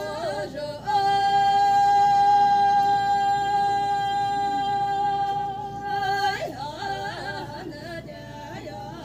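Two women singing a traditional Chakhesang Naga folk song unaccompanied, holding one long high note for about five seconds from about a second in, with wavering melodic phrases before and after it.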